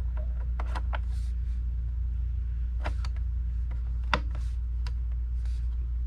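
Light clicks and taps as a DDR4 memory module is pushed into a memory slot of a 2019 27-inch iMac, with a sharper click about four seconds in, over a steady low hum.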